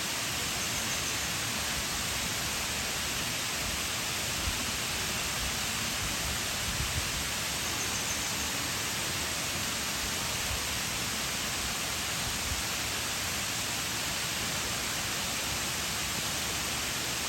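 Waterfall: the steady rushing hiss of falling water, even and unbroken.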